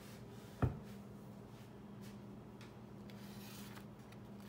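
A single sharp knock about half a second in, over a steady low hum, with a faint rustle near the end.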